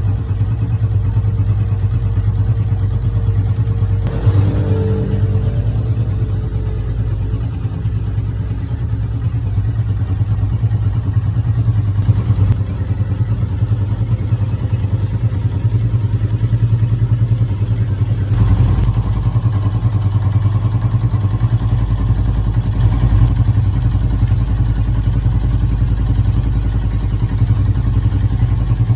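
Motorcycle engine running steadily with a clatter, the noise of a clutch fault. The sound changes briefly about four seconds in and again about eighteen seconds in.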